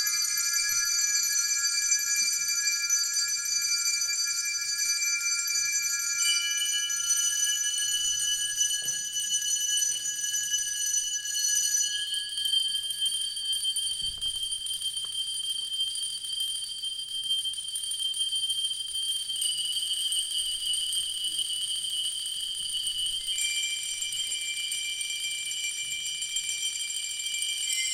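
Experimental live music made of clusters of sustained, piercing high tones, held steady and shifting to a new set of pitches every four to seven seconds, with no beat.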